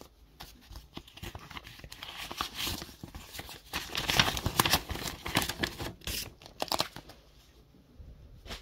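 A paper mail envelope being torn open and handled, with crinkling and rustling of paper, loudest about four to five seconds in.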